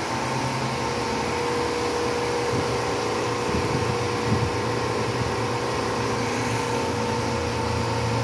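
Electric motor and hydraulic pump of a 250-ton tire press running with a steady hum and a couple of steady tones, driving the ram down to press a press-on forklift tire onto its wheel.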